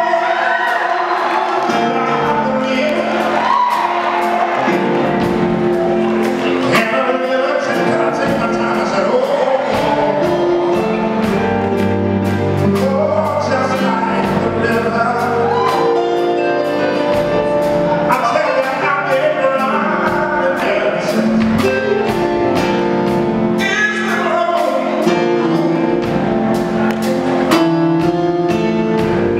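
A man singing live into a microphone, backed by a band: a drum kit with regular cymbal strikes and sustained instrument notes underneath.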